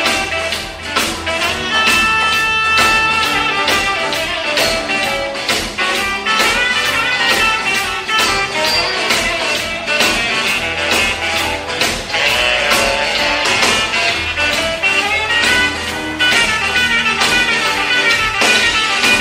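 Rock band playing live, an instrumental passage without singing: drums keep a steady beat about twice a second under electric guitar, bass and keyboards.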